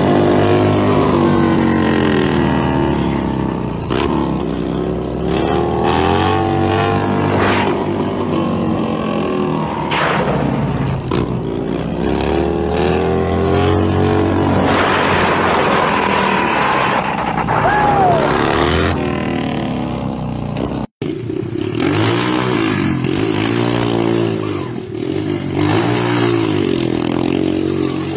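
Motorcycle engines revving, their pitch rising and falling repeatedly with the throttle, with a few short sharp clicks. The sound drops out for an instant about three quarters of the way through, then revving resumes.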